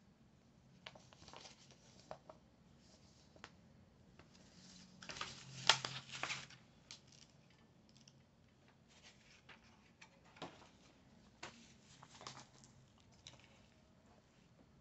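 Paper comic book pages being flipped and handled: soft, faint rustles and flicks of paper, with the busiest run of page flicks about five to six seconds in.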